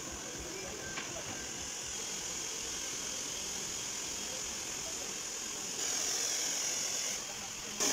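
Handheld hair dryer blowing with a steady hiss, growing louder about six seconds in, dipping briefly, then louder again near the end.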